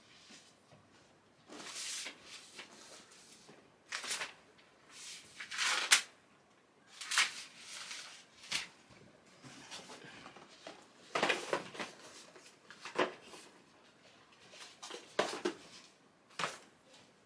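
Cardboard boxes being handled, unstacked and opened on a bed: a string of short scrapes, rustles and soft knocks, the loudest about six seconds in.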